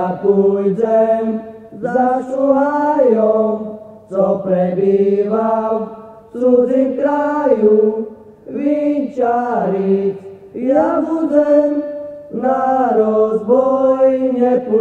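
Voices singing a Slovak folk Christmas song unaccompanied, in short phrases of about two seconds, each followed by a brief pause for breath.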